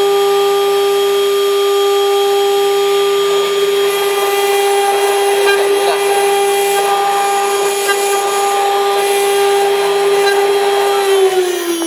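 CNC engraving machine's spindle motor running at a steady high pitch, then starting to wind down with a falling pitch near the end.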